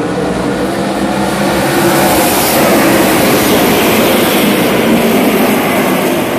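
A pack of ARCA stock cars running at racing speed, their V8 engines blending into one continuous loud noise that swells for a few seconds in the middle as the field passes.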